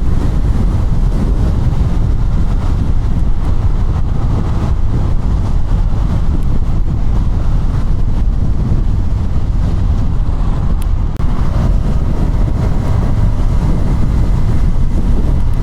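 Motorcycle riding sound from a KTM Duke 200: heavy wind rushing over the microphone with the single-cylinder engine running steadily underneath. The level dips briefly about eleven seconds in.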